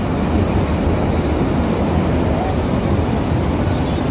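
Berlin U-Bahn train at the platform, a steady loud rumbling noise with no distinct clicks or changes.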